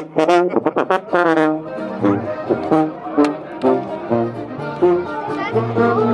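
Live brass music with a sousaphone blared right at the microphone: a run of quick short notes at first, then longer held notes over a low bass line.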